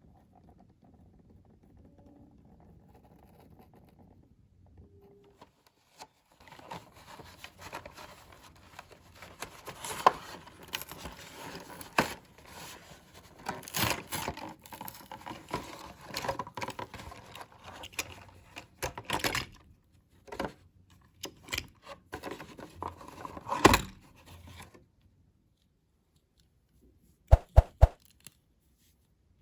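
A toy box being opened and its packaging handled: irregular rustling, scraping and tearing with sharp knocks, starting about six seconds in and stopping abruptly a few seconds before the end, followed by a few sharp clicks.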